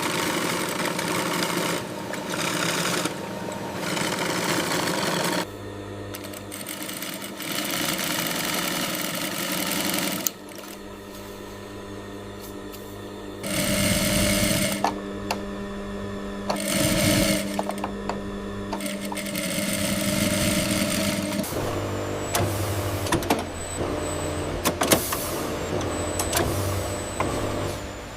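Textile factory machines running, the sound changing abruptly every few seconds from one steady mechanical hum to another, with scattered clicks in the second half.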